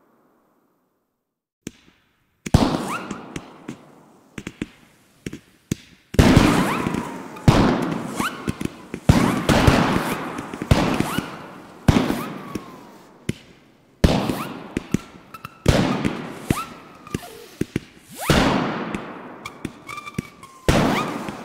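Fireworks going off in a rapid series of loud bangs, each followed by a fading rumble, starting about two seconds in and coming every second or two. Short whistling tones sound among the bangs, most of them near the end.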